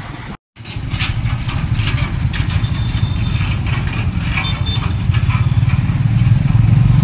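Tuk-tuk's motorcycle engine running as it rides along, with rattling and knocking from the carriage over a rough, potholed road; the engine grows slowly louder toward the end.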